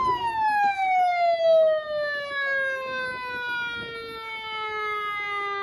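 A siren winding down: one wailing tone that falls slowly and steadily in pitch the whole time.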